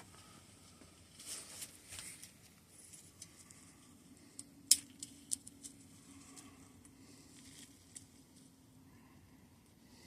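Small scattered clicks and scrapes of a metal pick working at the master cylinder of a Hope Race Evo X2 hydraulic brake lever, with one sharp click near the middle.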